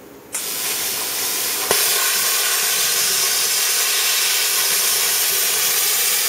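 PT31 non-pilot-arc plasma torch dragged on steel, cutting. A hiss of air starts about a third of a second in. About 1.7 s in it jumps louder with a sharp click as the arc strikes, then holds a loud, steady hiss through the cut.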